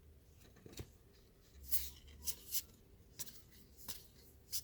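Trading cards being slid and flipped through by hand: a run of short, faint papery swishes and light clicks, most of them between about one and a half and three seconds in.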